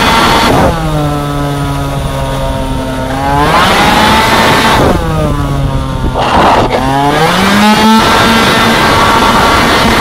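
Two-stroke racing scooter engine at race speed, revving high, then dropping off and climbing again several times as the throttle is closed and reopened: a drop just under a second in, a low steady stretch, a rise at about three and a half seconds, another drop near five seconds and a climb again from about seven seconds.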